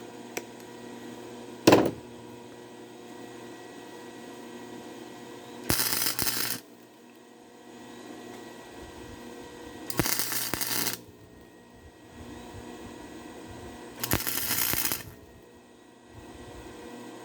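Flux-core wire-feed welder laying three short tack welds on steel saw blade, each a crackling burst of about a second, roughly four seconds apart, over a steady hum. A single sharp knock comes near the start.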